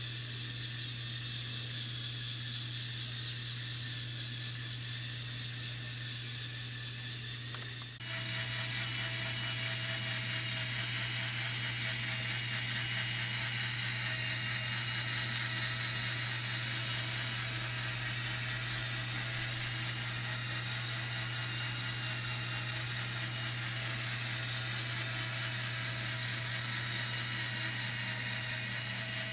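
Lego Technic gear train of about 200 plastic gears and chained differentials, driven by a Power Functions medium motor, running with a steady, smooth whir. About eight seconds in the sound dips briefly, then runs on a little fuller with a faint steady whine added.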